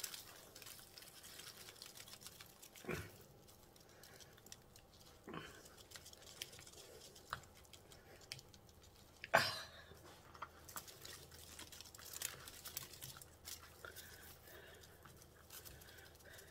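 Hands pressing and working loose potting soil around a plant in a plastic pot: soft rustling and crumbling, with a few knocks, the loudest about nine seconds in.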